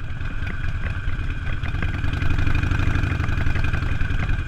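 Harley-Davidson motorcycle's V-twin engine running at a steady, fast low pulse while the bike rides along a gravel road.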